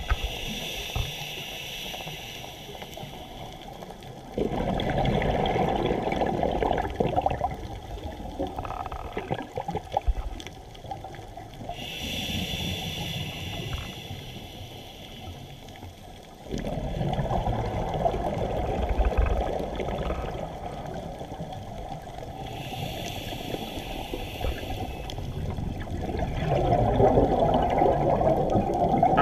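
Scuba diver breathing through a regulator underwater: three breaths, each a short hissing inhale followed by several seconds of bubbling exhaust as the breath is let out.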